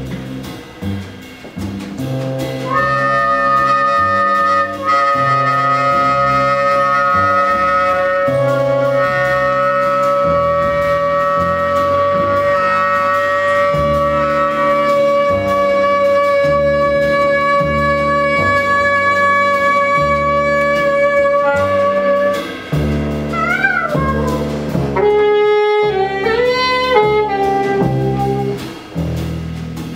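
Live jazz trio of saxophone, double bass and drum kit. The saxophone holds one long note for about twenty seconds over a moving double bass line, then breaks into quick phrases with bent notes near the end.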